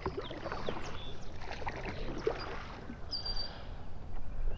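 Kayak being paddled through shallow marsh: irregular paddle splashes and drips, with reeds and water plants brushing and scraping against the hull, busiest in the first three seconds.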